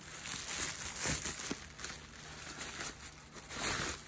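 Packaging crinkling and rustling as it is unwrapped by hand. It comes in uneven bursts, loudest about a second in and again near the end.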